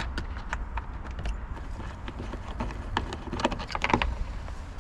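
Ratchet wrench clicking in quick, even strokes, about four or five clicks a second, as a bolt is undone on the car's rear trim, with a denser rattle of clicks about three seconds in.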